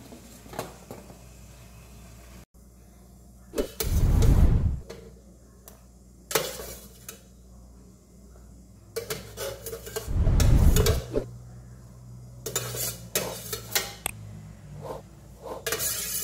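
Stainless steel steamer pot and utensils: a metal spoon clinking and scraping against the perforated steamer basket and a glass bowl as steamed carrot sticks are scooped out, in scattered bursts of clatter. Two louder dull bumps come about four and ten seconds in.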